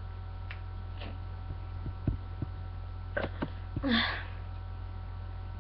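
A person's short, breathy puff of air from the throat about four seconds in, part of straining to force up a burp. A few faint clicks come before it, over a steady low hum.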